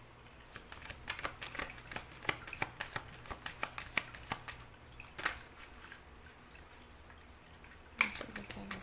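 Tarot cards being shuffled by hand: a quick run of light card clicks for the first few seconds, quieter after that, with a louder flurry of card sounds near the end.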